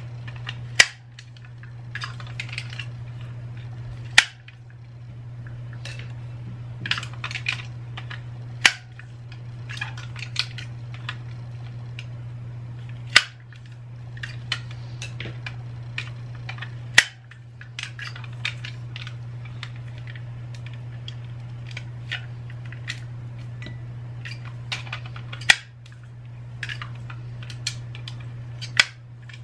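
Plastic wire egg slicer cutting hard-boiled eggs: about seven sharp clacks a few seconds apart as the hinged cutter is snapped shut, with smaller taps and rustles between as the slices are handled into a bowl.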